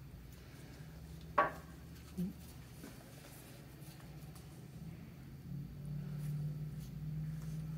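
A crankshaft being lowered by hand onto the main bearing shells of a Jaguar 3.4-litre block, giving one light, sharp click about a second and a half in and a faint knock a little later. A low steady hum underneath grows louder about two-thirds of the way through.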